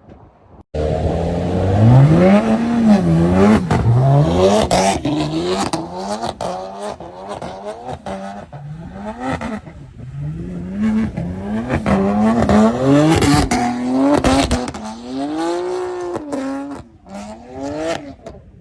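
A car engine revving hard, its pitch climbing and dropping over and over, about once a second, with tyre squeal, as in a drift. It cuts in abruptly about a second in and dies away near the end.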